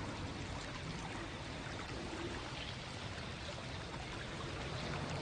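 Soft, steady sound of running water in an outdoor hot-spring bath, an even trickle and flow with no breaks.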